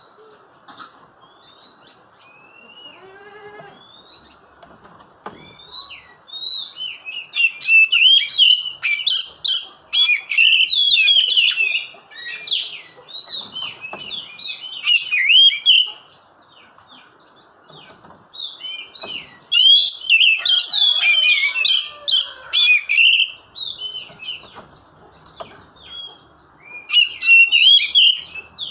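Oriental magpie-robin (kacer) singing a fast, varied song of chirps, trills and whistled glides. It comes as scattered notes at first, then in loud bursts of several seconds with sparser phrases between.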